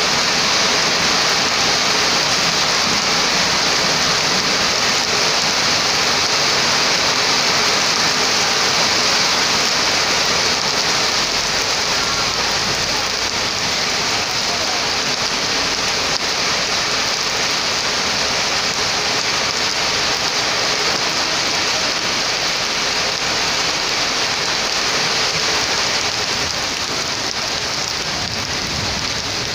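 Heavy rain falling steadily on paved concrete and grass, an even hiss that eases slightly near the end.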